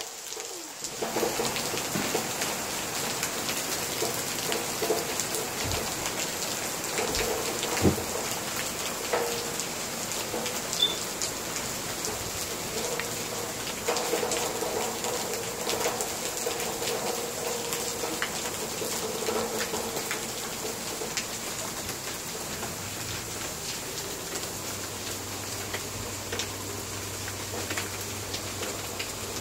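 Heavy rain falling steadily, a constant hiss dotted with many small drop clicks.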